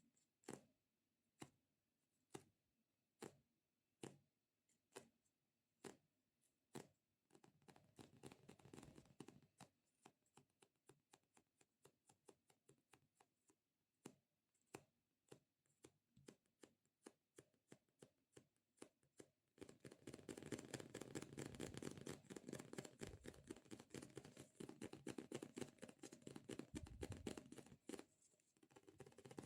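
Fingertips tapping on a sticky squishy toy, each tap with a small tacky click: slow single taps about once a second at first, then quicker, and from about two-thirds in a dense run of rapid sticky tapping and crackling that stops shortly before the end.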